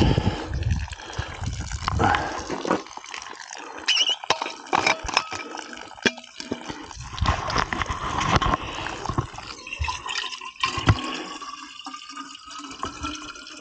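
Water running and splashing from a village street water pump. Over the last few seconds a faint tone rises slowly, as a container fills.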